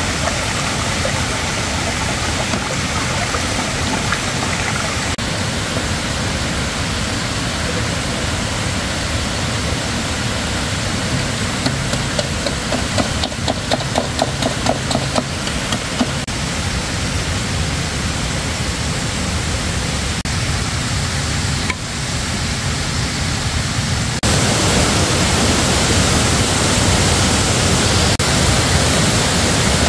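Steady rush of a shallow mountain stream, with a quick run of about a dozen light machete chops on green bamboo in the middle; the water noise grows louder and hissier about three quarters of the way through.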